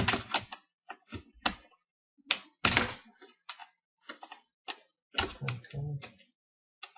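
Irregular clicks and knocks from handling the ASUS G73JH laptop's screen assembly at its loosened hinge as it is tilted forward, with short silences between the taps.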